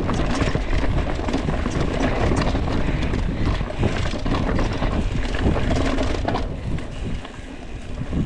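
Mountain bike ridden over a rocky trail, heard from a handlebar-mounted camera: a steady clatter and rattle of tyres and frame knocking over rocks. It eases off about six and a half seconds in as the trail turns smoother and grassy.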